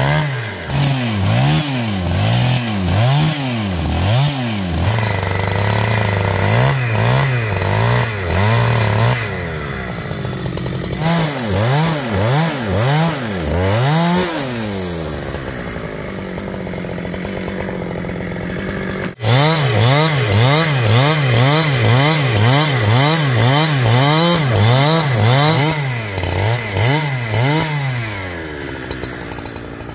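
Chainsaw cutting wood, its engine revving up and down over and over as the throttle is worked. In the middle it runs more steadily for a few seconds, then it breaks off suddenly and comes straight back revving.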